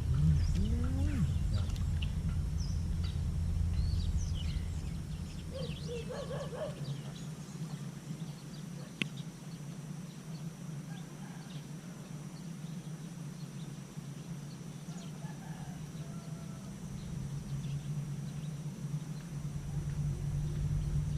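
Outdoor ambience: scattered bird calls and chirps over a low rumble that fades about seven seconds in and builds again near the end, with a faint steady high tone throughout.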